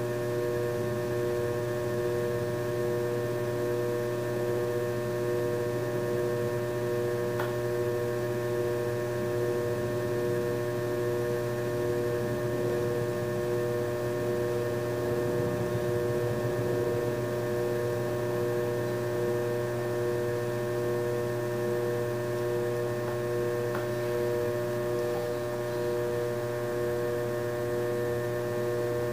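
Electric potter's wheel running at a steady speed: a constant motor hum made of several steady tones that does not change.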